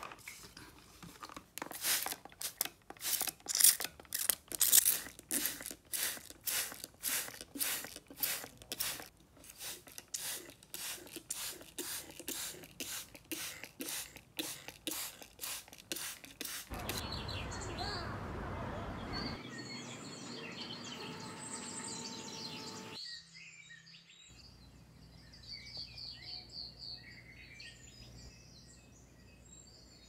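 Hand spray bottle misting shiitake mushroom grow blocks, quick sprays about two a second for the first half; then a steady hiss for several seconds, and faint birds chirping near the end.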